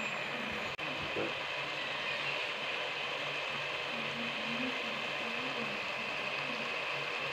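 Onion-and-tomato masala frying in a pan, a steady sizzling hiss with a low hum under it, briefly cutting out just under a second in.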